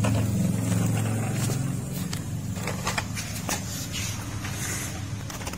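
Plastic toy car-carrier truck rolled by hand over a tiled floor: a low rumble from its plastic wheels that fades over the first couple of seconds, with scattered sharp clicks and knocks.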